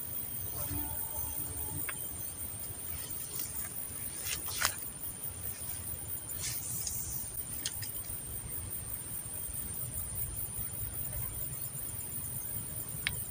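Steady, high-pitched chirring of insects with a fast, even pulse, over a low rumble, with a few short sharp clicks scattered through.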